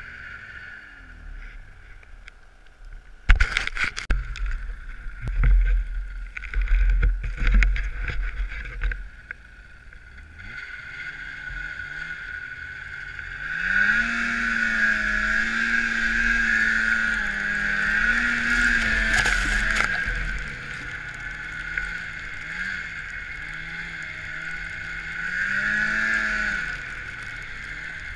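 Snowmobile engine pushing through deep powder: it revs up about halfway through and holds there for several seconds, eases off, then revs briefly again near the end, with a steady high whine under it. Before that comes a run of loud knocks and low rumbles on the microphone.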